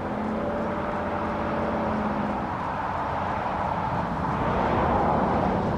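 A vehicle passing on the nearby road. A steady engine hum runs for the first two seconds or so, then engine and tyre noise swells to a peak near the end.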